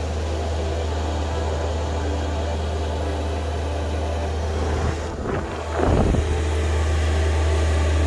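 Diesel air heater running just after being fired up, a steady loud low hum and whir from its blower, combustion and fuel pump. About six seconds in there is a brief louder rumble, and the hum is a little louder afterwards.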